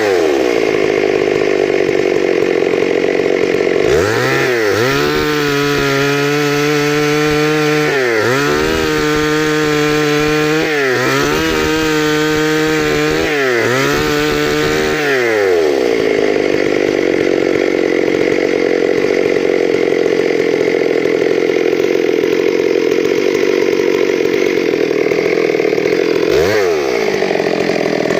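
Stihl MS 382 two-stroke chainsaw, running again after a stuck-piston repair. It drops to idle, is blipped to full throttle and back several times, then holds at high speed for about ten seconds, cutting wood, before dropping back twice near the end.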